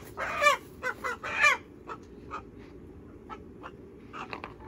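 A freshly caught chicken squawking in protest: several loud squawks in the first second and a half, then a few short, fainter clucks.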